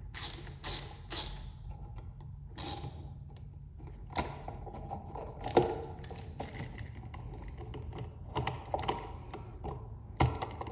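Irregular small clicks, taps and scrapes of a screwdriver and wires being worked on an electrical outlet's terminal screws, over a low steady hum.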